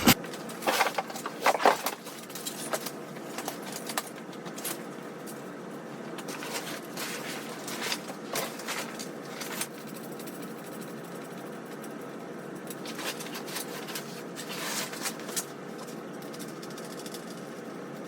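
Fabric and frame of a folding waterfowl blind rustling and clicking as it is turned and handled, in short bursts that come mostly in the first two seconds, around the middle and near the end, over a steady background hum.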